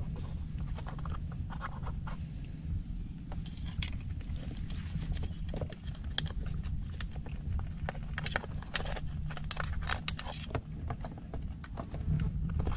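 Irregular wet clicks and crackles of mud being worked at a water-filled crab burrow, with a metal rod wedged in the hole, over a steady low rumble. The clicks grow denser after the first few seconds.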